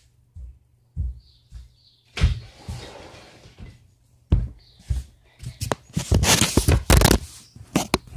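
Knocks, thuds and rustling, a few single thuds at first, then a dense run of clattering knocks from about five to seven seconds in, the loudest part.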